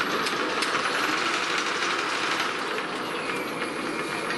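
Rapid-traverse motor of a 1K62 lathe, run through a small variable-frequency drive, driving the carriage along the bed with a steady whir of the feed shaft and apron gears. Near the end the motor's whine begins to drop in pitch as it is slowed.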